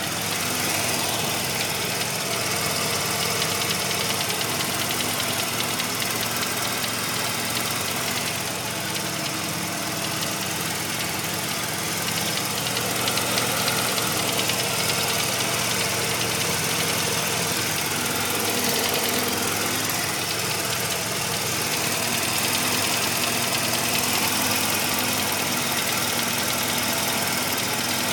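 1985 Mazda RX-7 rotary engine idling warm, with a steady repeating knock. The knock appears only once the engine is warmed up, and its cause is unknown; the owner hopes it is a pulley.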